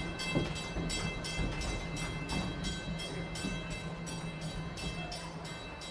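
Wildlife Express passenger train moving along its track, a steady rhythmic clatter about three times a second over a low steady hum.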